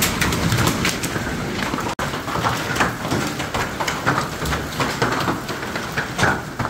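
Hailstones and heavy rain pelting a metal door and the surfaces around it: a dense, rapid clatter of hits over the steady rush of the downpour, with a split-second break about two seconds in.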